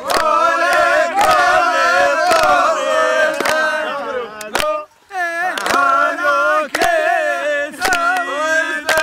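A group of men singing together in chorus, with sharp handclaps roughly once a second. The singing breaks off for a moment about five seconds in, then resumes.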